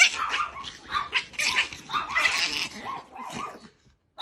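A dog barking and yipping in a series of short, irregular bursts, which stop shortly before the end.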